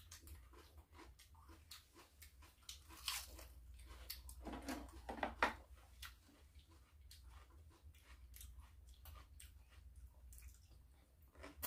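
Close-up chewing and crunching of raw vegetables and nuts, mixed with light irregular clicks of chopsticks against dishes. The chewing is louder about halfway through.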